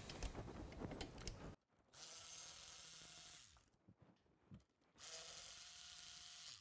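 Milwaukee M12 cordless 3/8-inch electric ratchet running faintly in two bursts of about a second and a half each, spinning out the rear brake caliper bolts. There is light tool clatter before the first run.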